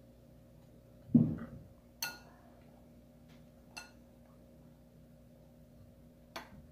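A dull thump about a second in, then three light clinks of white ceramic plates against each other and the granite countertop, the first clink ringing briefly.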